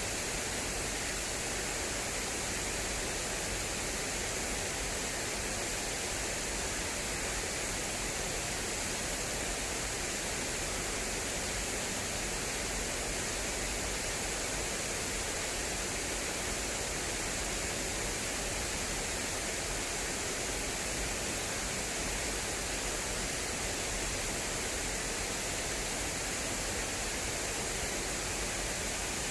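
Water flowing fast through an irrigation channel: a steady, unbroken rush.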